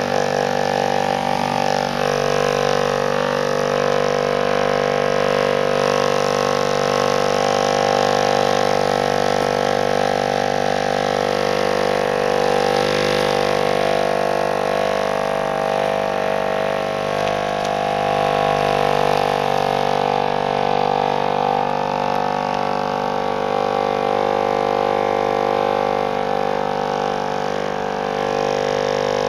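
Electric palm massager's motor running with a steady buzzing hum while it is pressed against a cat's fur.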